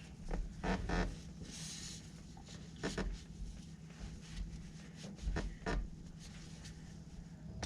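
Faint, scattered clicks and knocks of hands working the oil fill cap and dipstick on a Polaris Ranger 570 engine, with a brief soft rustle about a second and a half in.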